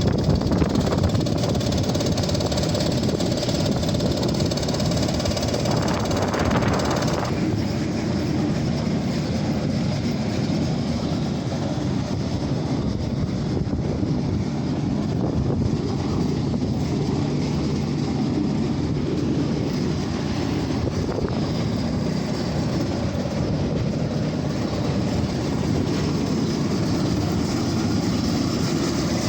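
Tractor engine running steadily, pulling a Krone BiG Pack 1290 large square baler (3x4 ft bales) that is working, with a thin whine through the first few seconds.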